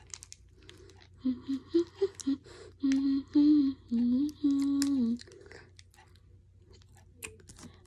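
A girl humming with her mouth closed: a few short notes, then longer held ones, stopping about five seconds in. Around them come the faint crinkly clicks of a plastic glitter packet she is tearing open with her teeth.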